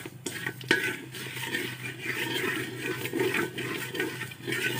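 Ghee and sugar sizzling in a steel pot while a wooden spatula stirs and scrapes the pot bottom, the sugar being browned, with a sharp knock of the spatula against the pot a little under a second in. A steady low hum runs underneath.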